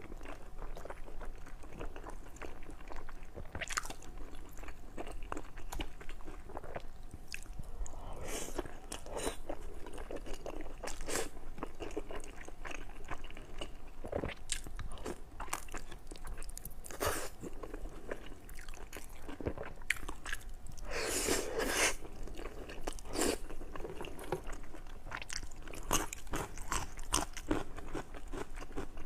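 A person biting and chewing food close to the microphone, a steady run of short sharp bite and chew sounds, with louder bites about a third of the way in and again about two-thirds through.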